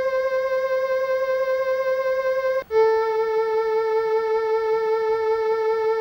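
Electronic keyboard playing a violin voice: a held note with slight vibrato and many evenly spaced overtones. After a short break about halfway through comes a lower held note, the A at 440.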